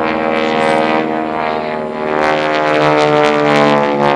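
North American Harvard Mark IV trainer's Pratt & Whitney R-1340 Wasp radial engine and propeller during an aerobatic display: a steady rough drone, sliding slightly lower in pitch and growing louder in the second half.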